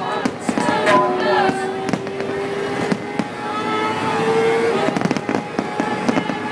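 Fireworks going off in many sharp bangs and crackles, over a long steady tone and voices.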